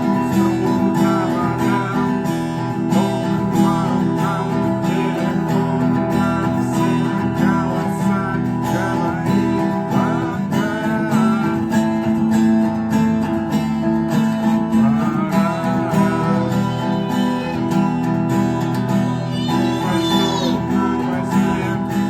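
Acoustic guitar strummed in a steady, even rhythm, played as the 'knock' strumming pattern, with percussive muted strikes between the strummed chords.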